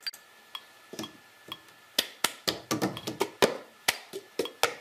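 A run of sharp taps and knocks, about two a second at first, then quicker and more irregular from about two seconds in.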